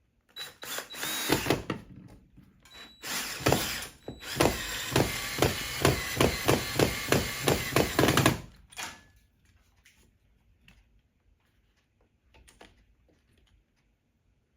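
Power drill running in two short bursts, then in a longer run of about four seconds with a regular pulsing beat, about three a second, before stopping abruptly: a hole being drilled or a screw driven while the cable retractor is being mounted.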